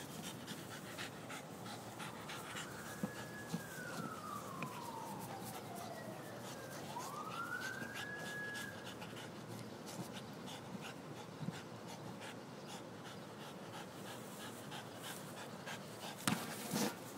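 Boston terrier panting and licking a rubber exercise ball, with many small wet clicks of tongue on rubber. A siren wails up and down behind it in the first half, and a few louder knocks come near the end.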